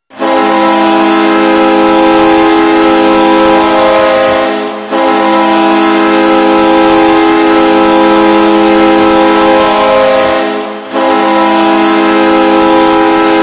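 New York Islanders' old goal horn blowing a loud chord of several steady tones in long blasts of about five to six seconds each, with only a short dip between blasts.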